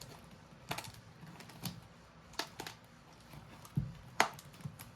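A non-magnetic Gigaminx puzzle being turned for the first time: its plastic layers click in about six separate turns, the loudest near the end. The puzzle is stiff out of the box.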